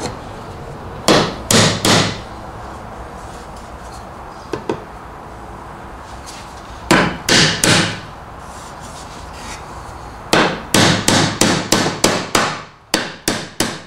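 Hammer driving nails through a pine board into the end of a wooden box: three blows, a pause, three more, then a quick run of about a dozen blows near the end.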